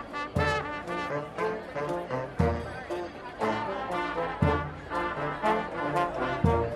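Street marching band of brass and drums playing a tune, with a heavy low drum beat every two seconds under the brass chords.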